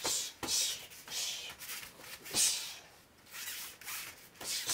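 Bare feet scuffing and stepping on foam floor mats, with gloved punches and kicks landing, as two people run a kickboxing drill: a string of short rubbing swishes and soft knocks, the loudest about two and a half seconds in.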